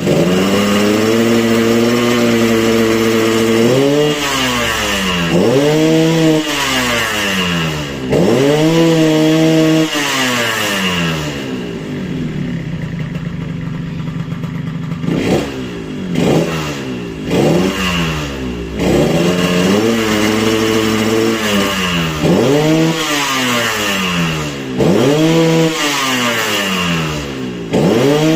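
Yamaha RX-King's single-cylinder two-stroke engine being revved over and over with the throttle, each rev rising and falling back, with a lower idle stretch partway through followed by a few quick blips. The engine is being tuned for the 'ngorok' snoring growl from its ngorok air filter.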